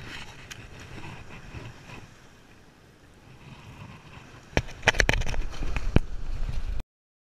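Wind rumbling on the microphone with clicks and knocks of handling. It grows much louder about four and a half seconds in, then cuts off abruptly.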